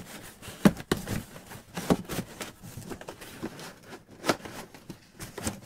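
Cardboard box and packing materials being handled: rustling and crackling with a few sharp knocks and taps, the loudest about two-thirds of a second in.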